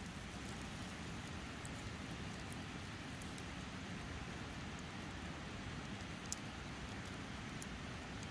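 Wood campfire burning: a faint steady hiss with scattered sharp crackles and pops.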